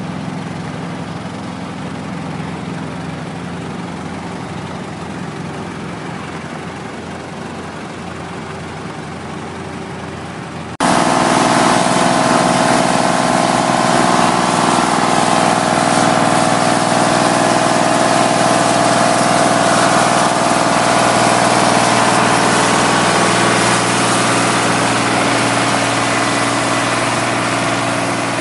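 Heavy diesel paving machinery running steadily at a constant speed. About eleven seconds in, the engine noise jumps suddenly louder, with a stronger mid-pitched drone.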